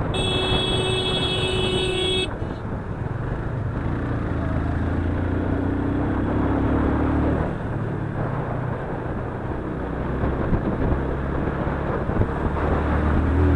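Yamaha FZ-25's single-cylinder engine running as the motorcycle rides along in traffic, its note rising again at times. A vehicle horn sounds steadily for about two seconds at the very start, then cuts off.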